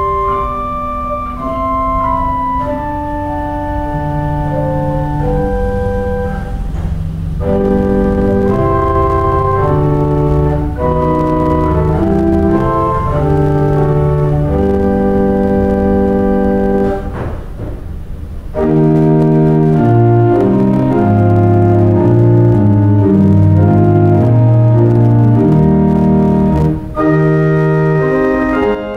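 Organ music: slow, held chords under a melody line, with bass notes below. It pauses briefly twice and grows fuller and louder about two-thirds of the way through.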